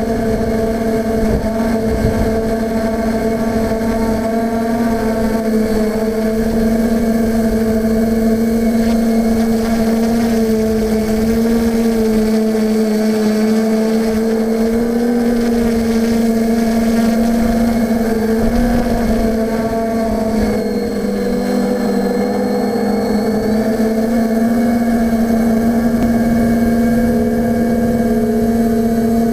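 Steadidrone quadcopter's electric motors and propellers humming steadily, heard up close from the camera on board, with gusty wind buffeting the microphone. The pitch wavers a little now and then, dipping briefly about two-thirds of the way through as the motors change speed.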